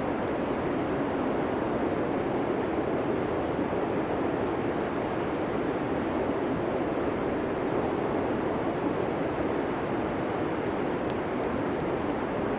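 Blizzard wind blowing steadily, a dense rushing noise with no distinct gusts or tones.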